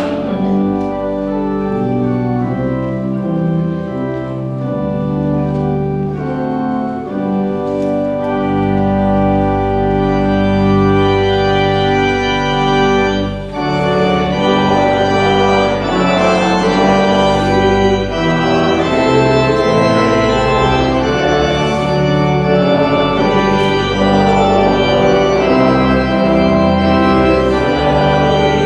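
Church organ playing a postlude, sustained chords with a moving melody that grows fuller about halfway through.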